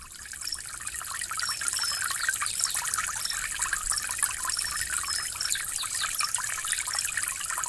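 Running water of a small stream, a steady trickling and splashing that fades in over the first couple of seconds.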